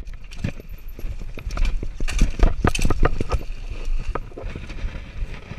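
Mountain bike clattering down a steep rocky drop: a quick run of knocks and rattles from tyres and frame striking rock, densest about two to three seconds in.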